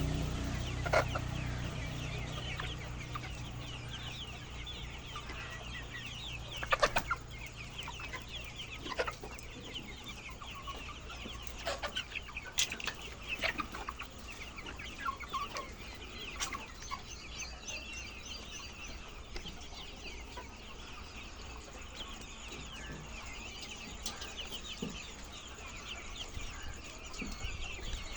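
A large flock of laying hens clucking and calling together, a dense continuous chatter, with a few sharp clicks or knocks and a steady low hum underneath.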